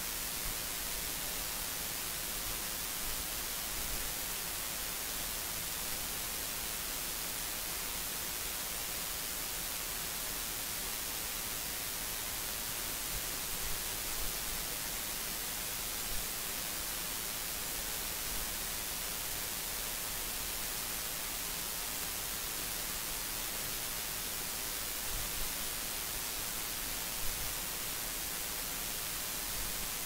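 Steady hiss of static with a faint low hum underneath.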